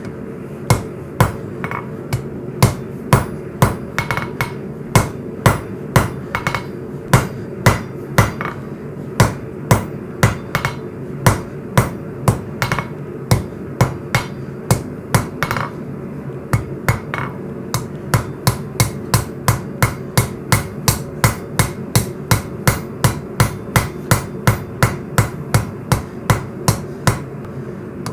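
Hand hammer striking hot coil-spring steel on an anvil, forging a knife tip, over a steady low hum. About two blows a second, a short pause around the middle, then a quicker run of about three blows a second.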